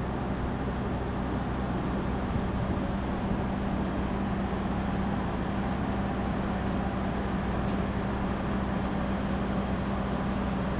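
Steady low diesel drone of the Argo Sindoro passenger train at the platform, one unchanging pitch with no clanks or horn.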